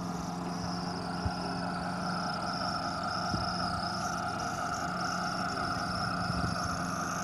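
Electric drive of a garden-scale model diesel locomotive pulling freight wagons, a steady motor-and-gear whine with a couple of short clicks from the wheels on the track.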